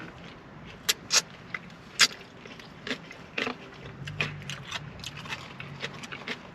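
Eating sounds: chewing and handling food and wrappers, a scatter of sharp clicks and crinkles, with a brief low hummed "mm" about four seconds in.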